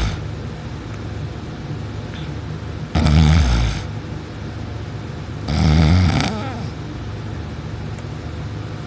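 A sleeping person snoring loudly: two snores about two and a half seconds apart, each lasting under a second, over a steady low hum.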